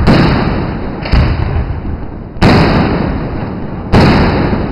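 Aerial firework shells bursting overhead: four loud booms, spaced roughly a second to a second and a half apart, each trailing off in a rumbling echo.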